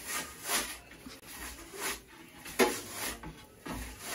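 Short scrapes and knocks, about six in four seconds, the sharpest about two and a half seconds in: a pizza peel working against the stone of a portable gas pizza oven as the pizza is turned.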